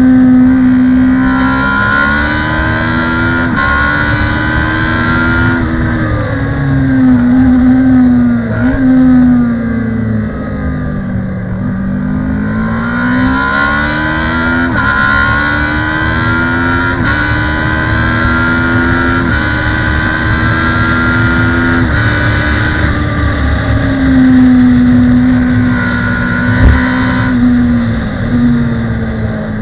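Onboard sound of a Kawasaki ER-6 (ER650) parallel-twin race bike under hard acceleration. The engine note climbs through the gears and drops sharply at each upshift. It falls away under braking and downshifts about a third of the way in and again near the end.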